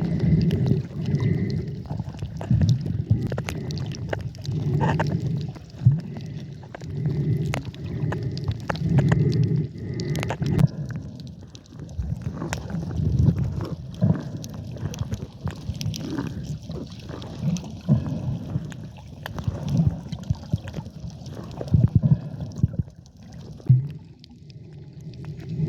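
Muffled underwater sound of water sloshing and gurgling around the camera while snorkeling: low swells every second or two with scattered clicks and knocks.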